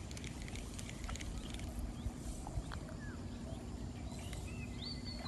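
Outdoor ambience: a few faint bird calls, short whistled glides that are clearest near the end, over a steady faint low hum.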